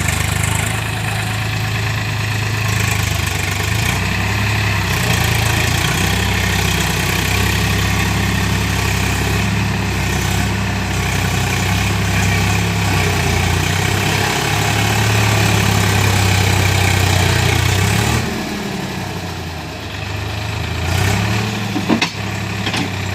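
Tractor diesel engine running steadily at fairly high speed. Its note sags and then picks back up about three quarters of the way through, and a sharp knock or two follows near the end.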